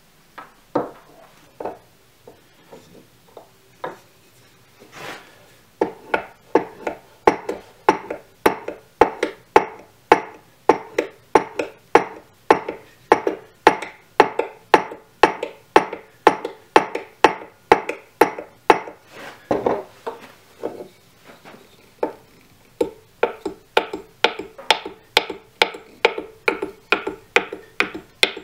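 A large half-round carving gouge being sharpened by hand, a hone rubbed back and forth along its steel blade in rhythmic scraping strokes of about two a second. There is a short pause a little after two-thirds of the way through, then the strokes resume.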